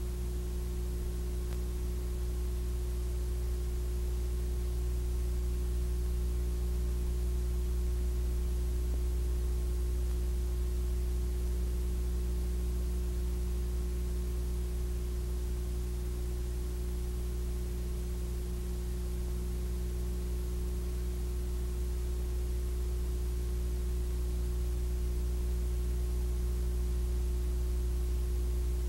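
Steady electrical mains hum, a low buzz with a few fixed higher tones over faint hiss, and no other sound: the noise of a silent Super 8 film's transfer to tape.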